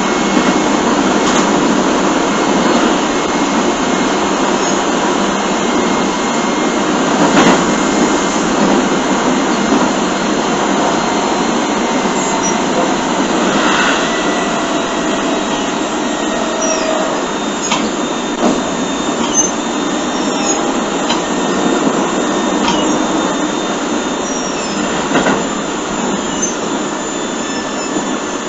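Keio 7000 series electric train with field-chopper control running, heard on board car 7052 through a flip phone's recorder: a steady rumble of wheels and motors with a few scattered clacks.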